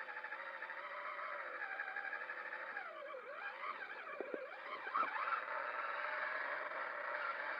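Electric motor and gear whine of a Traxxas Summit RC truck, picked up by its onboard camera. Several pitches drop and climb again a few times near the middle as the truck slows and speeds up, with a couple of short knocks.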